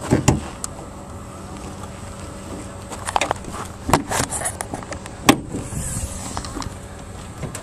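Hood latch and hood of a 1999 Ford F-250 pickup being released and lifted open: a string of sharp clicks and clunks, bunched in the middle, over a steady low hum.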